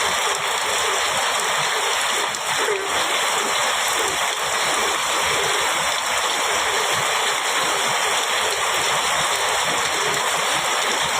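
Heavy rain falling steadily on a metal roof, an even, unbroken hiss.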